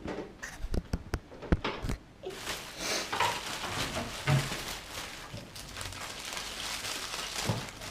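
Paper pastry packaging being handled and opened: a few sharp knocks and clicks, then steady paper rustling from about two seconds in.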